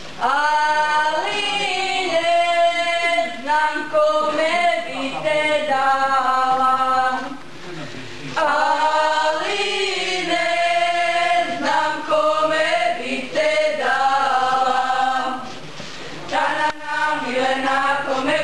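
A group of women singing a folk song without accompaniment, in long held phrases with two short breaks between them.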